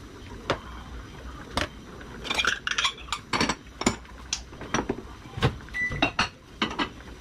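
Dishes and bowls clinking and knocking on a kitchen counter as they are handled and set down, in scattered sharp taps with a little ringing. A short beep sounds once a little before the end.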